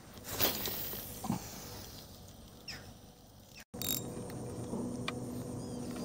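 Rustling and a couple of short knocks from a handheld camera being moved about. After a sudden cut about two-thirds through, a faint steady hum with a few short high chirps.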